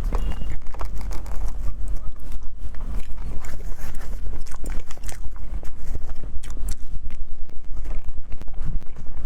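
Close-miked eating of a dessert: many scattered short clicks and smacks of utensil and mouth over a constant low hum.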